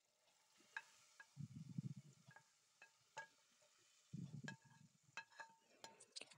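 Hot tadka of oil, fried onions and red chili poured from a frying pan into a pot of simmering dal and mutton, sizzling faintly as it hits the liquid in two short pours, with scattered light metal clinks of a utensil against the pan.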